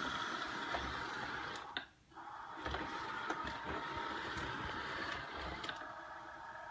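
Samsung Navibot SR8828 robot vacuum running, a steady motor and brush whir with a few light clicks. It drops out briefly about two seconds in.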